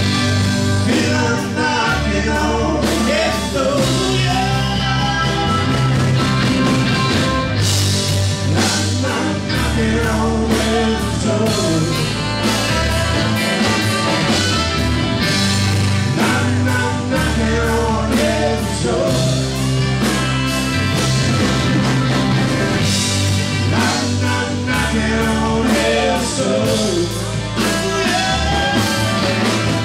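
Live rock band playing: electric guitar, bass guitar, drum kit, saxophone and keyboards, with a voice singing over a steady beat.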